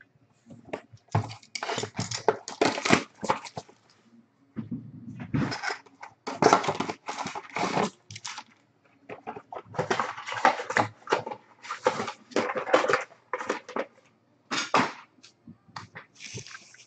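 Foil-wrapped trading card packs crinkling and rustling as a stack of them is shuffled and squared up by hand, in irregular bursts with brief pauses.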